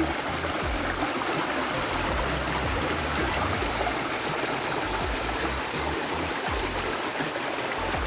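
A small stream running: a steady, even rush of flowing water.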